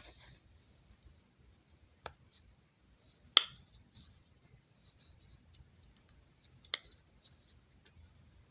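Small fidget toys being handled, giving sporadic sharp clicks and taps. The loudest comes about three and a half seconds in, with others about two and seven seconds in and faint ticking between.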